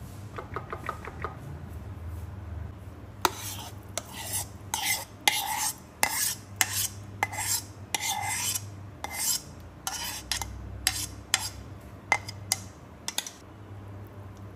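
Spoon scraping and knocking against a cooking dish while stirring, in a string of irregular strokes about half a second apart, after a brief run of quick light ticks.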